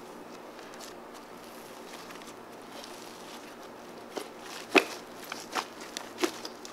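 Fluffy slime being stretched and then folded and squeezed by hand. It is faint at first, then gives a run of short sticky clicks and pops from about four seconds in, the loudest a little before the end.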